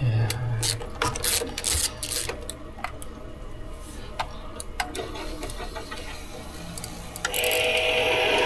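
Kabola diesel heater starting up: a run of irregular clicks and ticks, then about seven seconds in its burner and fan come on with a steady rushing noise that keeps growing louder.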